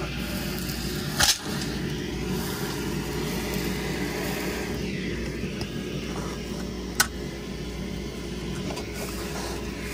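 Makita router on a LowRider v3 CNC running steadily while cutting plywood with a quarter-inch two-flute upcut end mill, with the shop vacuum's dust collection running alongside. Two sharp clicks, about a second in and near seven seconds in.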